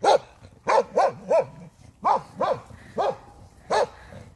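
A dog barking repeatedly: about nine short barks, each rising and falling in pitch, coming at uneven intervals.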